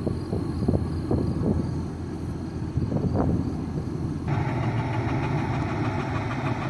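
Truck engine running while driving, with scattered knocks and rattles from the load shaking around. About four seconds in, a steadier hiss joins the rumble abruptly.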